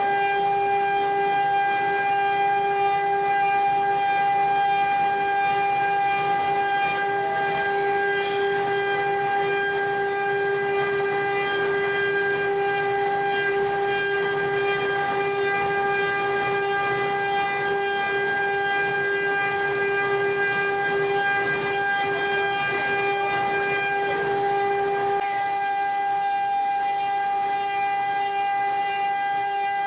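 CNC wood-carving machine's spindle running at speed: a steady high-pitched whine that holds one pitch, over a light hiss of cutting noise.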